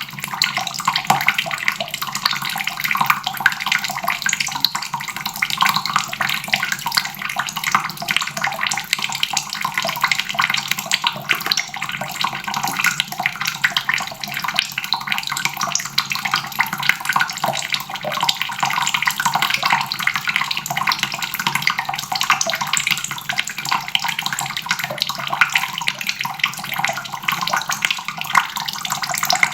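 Water running from a faucet in a steady stream, splashing into a basin.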